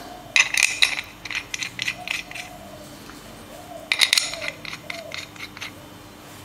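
Steel bolts clinking against a machined aluminium plate and a metal bench as they are picked up and set into a handbrake base: light metallic clicks in two clusters, about half a second in and about four seconds in, with a few fainter clicks between.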